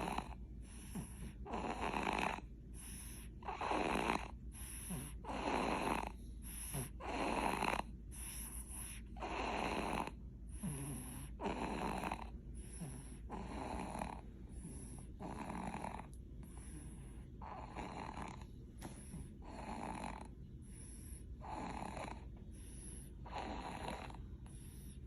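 A baby snoring in its sleep, a snore with each breath at an even pace of about one a second.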